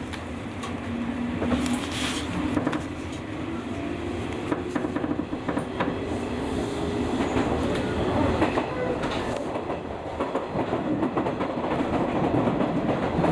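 JR 201 series thyristor-chopper electric train running on the rails. Its motor hum rises slowly in pitch as it picks up speed, over the wheels' rumble and clicking over rail joints.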